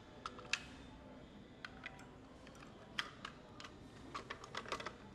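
Irregular light clicks and taps of hard plastic and batteries being handled, as D-cell batteries go into a rotary laser's battery compartment and the compartment is closed. The clicks come in a quicker cluster near the end.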